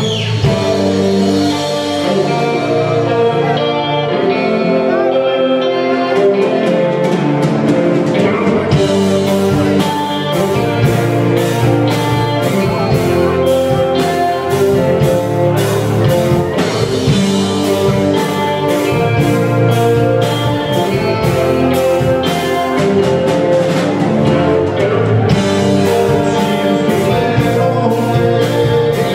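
Live rock band playing loud and steady: electric guitars, bass guitar and a drum kit. The drums get busier and brighter about nine seconds in.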